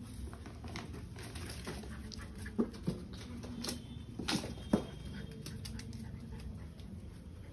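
Rottweiler and Labrador puppies scuffling over a dog chew: a handful of short, sharp sounds between about two and a half and five seconds in, over steady low background noise.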